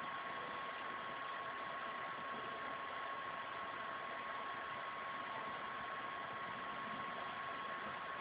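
Steady background hiss with a thin, steady high tone running through it, and nothing else audible: the recording's own noise floor.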